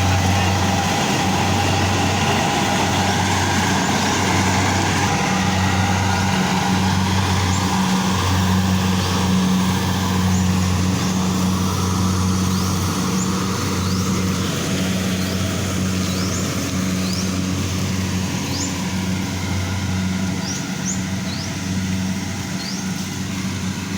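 Engine of a rice harvesting machine running steadily, a low hum that swells and dips, with short high rising chirps now and then.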